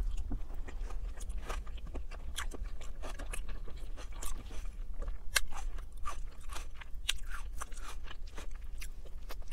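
Close-up chewing of roasted chicken: wet, irregular mouth clicks and smacks as she eats. Her fingers pull the chicken apart on the plate at the same time.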